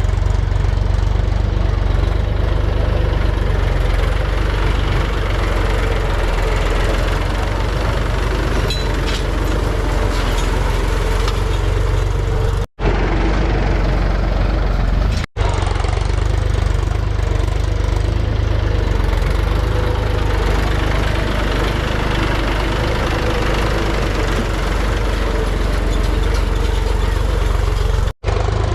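Heavy diesel engine of farm or earth-moving machinery running steadily with a deep, even rumble. It cuts out abruptly for a split second three times: twice near the middle and once near the end.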